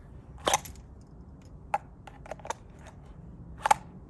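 Sharp plastic clicks of a Makarov pistol being pushed into and seated in a Kydex holster, with a few lighter clicks and rattles as it is handled. The loudest click comes about half a second in, another near the end.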